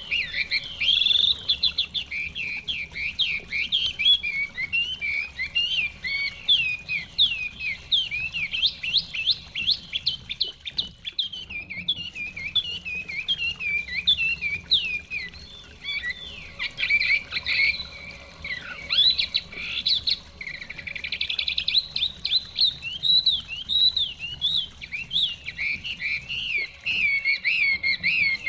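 Chinese hwamei (họa mi) singing: a long, nearly unbroken run of rapid, varied whistled notes.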